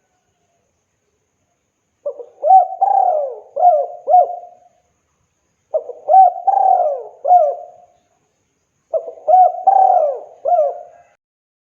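Spotted dove (tekukur) cooing: three phrases of several coos each, spaced about three seconds apart, beginning about two seconds in.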